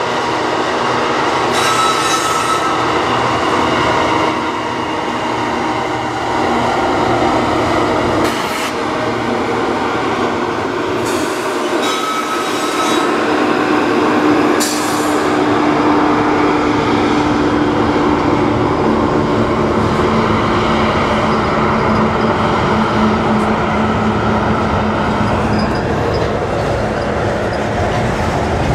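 Union Pacific freight train crossing a steel trestle: its diesel locomotives pass about halfway through, followed by a steady rumble of covered hopper cars rolling over the steel bridge, with brief wheel squeals.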